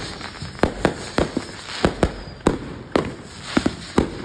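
Consumer aerial fireworks exploding in quick succession: about a dozen sharp, irregular bangs and pops over four seconds.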